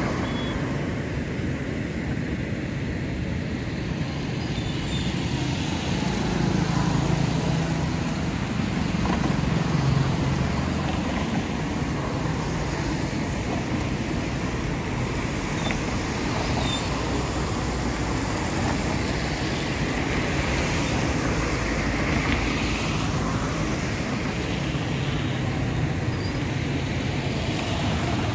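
Road traffic passing: a steady noise of engines and tyres that swells as vehicles go by, loudest about six to ten seconds in.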